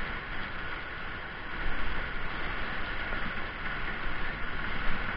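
Steady rush of water pouring and splashing down from the spouts and buckets of an indoor water park play structure.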